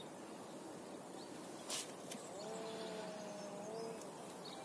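Outdoor ambience: a steady background hiss with a short click about a second and a half in, then a faint distant animal call held for about a second and a half on two pitches.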